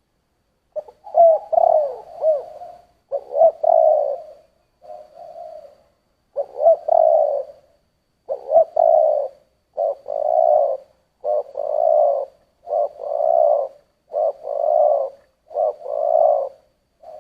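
Spotted dove cooing with the deep 'thổ' voice prized by Vietnamese dove keepers, a low coo repeated in phrases. The first phrases waver in pitch. From about ten seconds in the coos settle into an even rhythm of a short note and a longer one, roughly every second and a half.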